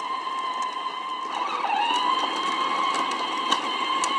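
Electric drive motors and gearbox of a Peg Perego John Deere Ground Force ride-on toy tractor whining steadily as it drives along pavement. About a second and a half in, the whine dips in pitch and climbs back up. Light ticks sound over it.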